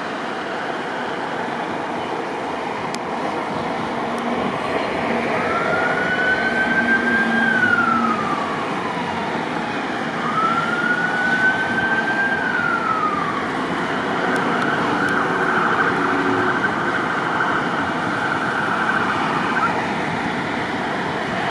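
An emergency vehicle siren wails twice, each wail rising and then sliding slowly down, then holds a steady tone for about five seconds. A steady rush of wind and road noise runs underneath.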